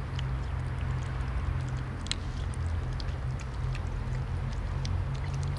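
Kitten lapping water from a plastic bowl: faint, irregular little wet clicks, over a steady low rumble.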